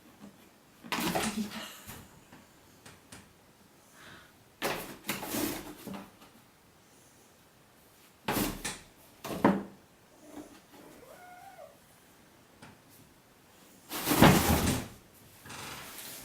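Kitten playing in a cardboard copier-paper box: four bursts of scratching, scrabbling and bumping against the cardboard, the loudest near the end.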